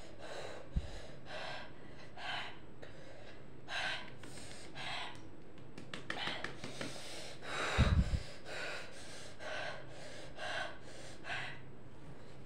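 A person breathing hard in short, hissing gasps through the mouth, one or two a second, the reaction to the burn of an extremely hot chili chip. A low bump about eight seconds in.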